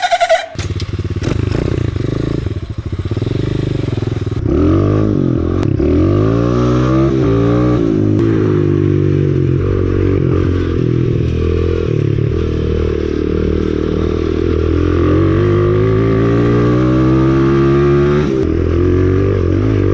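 125cc dirt bike engine being ridden, its pitch rising and falling again and again with the throttle and gear changes; it gets louder about four seconds in.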